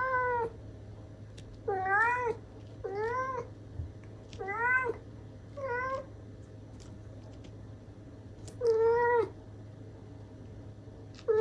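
British Shorthair kitten meowing over and over: about six short meows, each about half a second long, coming every second or two with a longer pause past the middle.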